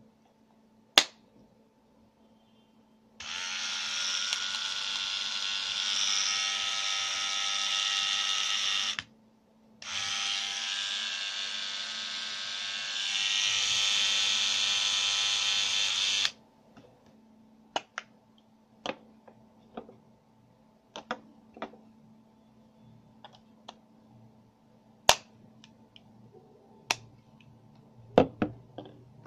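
Kemei KM-680A grooming kit's small electric motor running: it buzzes for about six seconds, stops briefly, then runs again for about six seconds, a little louder in the second run. Sharp clicks and taps come once before the motor starts and several times after it stops.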